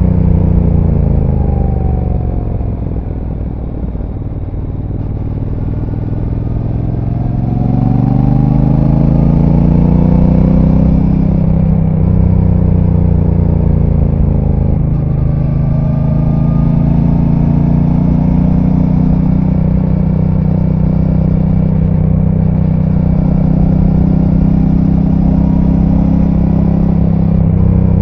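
Brixton Cromwell 1200's parallel-twin engine through its stock exhaust, heard on board while riding. The revs fall for the first few seconds as the bike slows, climb again as it accelerates, then hold fairly steady at a cruising pace, rising a little near the end.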